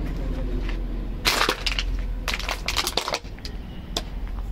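Two bouts of crunching and crackling, about a second in and again around two to three seconds in, with a single click near the end, over a steady low rumble.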